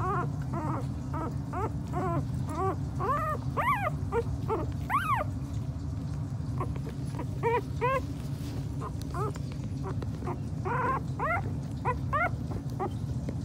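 Two-week-old miniature pinscher puppies squeaking and whimpering: a string of short, high cries that rise and fall, over a steady low hum.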